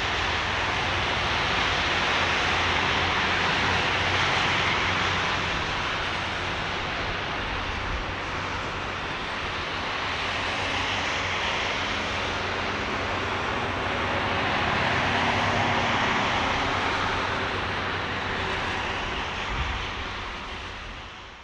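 Airbus A330-300 airliner's jet engines running at low power as it rolls slowly off the runway after landing: a steady jet rush that swells and eases twice, then fades out near the end.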